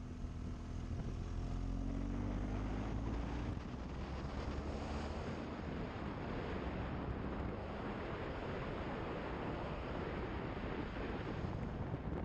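BMW GS adventure motorcycle engine pulling, its pitch rising for the first three seconds or so. Then wind rushing over the microphone covers the engine as the bike rides on.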